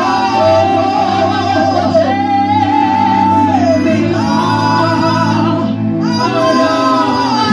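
A group of women singing a gospel song in isiZulu into microphones, holding long notes with vibrato over sustained electronic keyboard chords.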